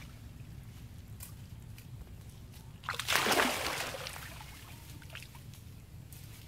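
A macaque plunging into water from a rock: one loud splash about three seconds in, then sloshing that dies away over about a second.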